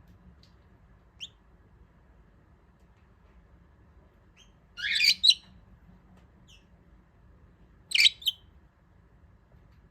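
Jumbo budgerigar: a faint short chirp about a second in, then two loud, short, sharp sounds about five and eight seconds in, each in two quick parts.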